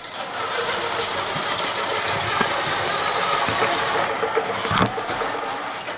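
Radio-controlled model truck running, a steady mechanical sound that starts abruptly and drops away about six seconds later.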